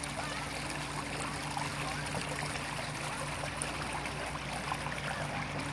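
Shallow creek water flowing and trickling steadily over stones, with a steady low hum underneath.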